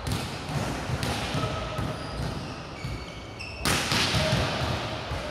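A ball bouncing repeatedly on a hard court floor, with short squeaks between the bounces and one loud hit about three and a half seconds in.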